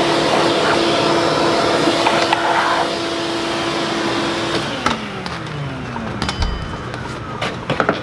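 Shop vacuum running as its hose sucks dirt and rust from a tractor's rear brake housing. About four and a half seconds in it is switched off, and its motor winds down with a falling whine. A few light knocks follow near the end.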